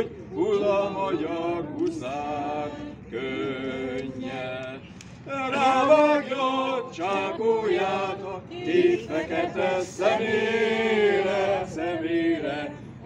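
A man singing an old Hungarian soldier song (katonanóta) unaccompanied, in a held, swooping folk style, with brief pauses between phrases.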